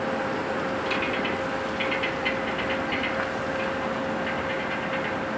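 Tour boat's engine running steadily: an even drone with a constant hum note through it and faint scattered ticks on top.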